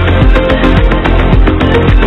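Background music with a steady beat and strong bass.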